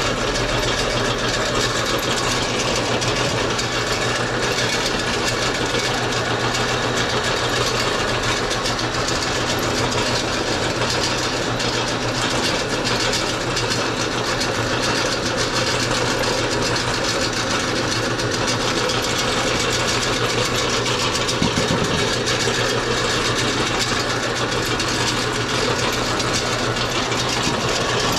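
Belt-driven motorized meat grinder running steadily with a constant hum as raw pork is fed through it and ground. A short knock about three-quarters of the way through.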